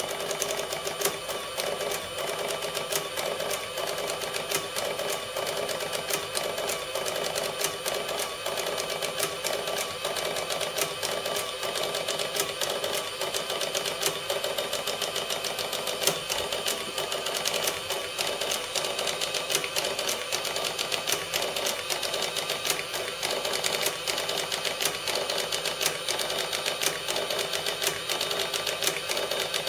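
Sharp XE-A102 cash register's built-in receipt printer printing a Z (end-of-day financial) report: a steady, rapid clicking chatter as the paper feeds out.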